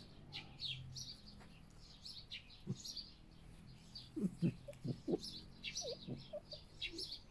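Small birds chirping repeatedly in the background. From about four seconds in, a red fox gives a run of short, low calls.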